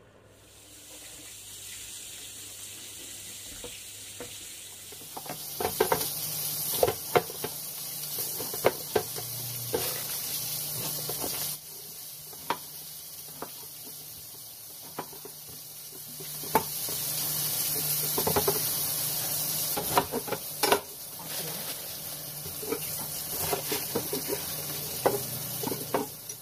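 Yellow fish curry sizzling in a wok on a gas stove, a steady hiss that grows louder twice. A spatula stirs and scrapes through it, with many sharp clicks and knocks against the pan.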